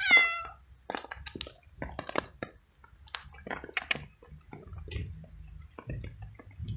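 Stray cat gives one short meow, falling slightly in pitch, right at the start, then eats pieces of cooked veal with a run of wet chewing and smacking clicks.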